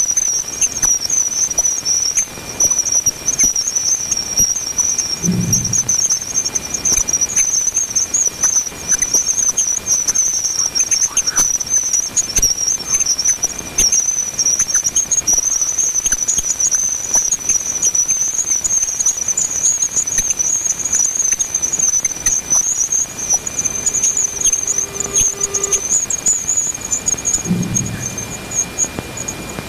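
Voyager plasma-wave recording of Jupiter's bow shock converted to sound: a high, steady, crackling hiss with a faint thin tone beneath it and scattered faint clicks. Two brief low thumps come about five seconds in and near the end.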